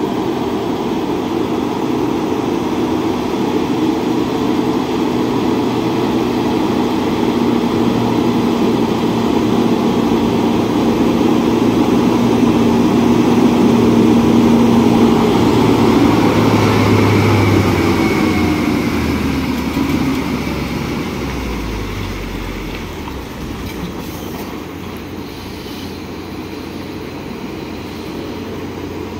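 Ashok Leyland truck's diesel engine running as the loaded truck comes up and passes close by. It grows louder to a peak about halfway through, then falls in pitch and fades as the truck swings away around the bend.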